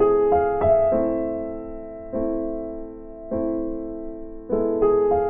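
Slow, gentle background piano music: chords and single notes struck about once a second and left to ring and fade.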